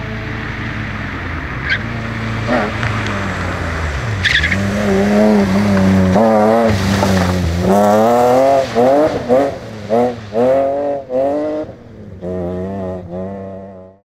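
BMW 3 Series rally car engine running hard on a stage: a steady drone at first, then revving up through the gears with the pitch climbing again and again, then several short bursts of throttle with lifts between them near the end. The sound cuts off abruptly at the end.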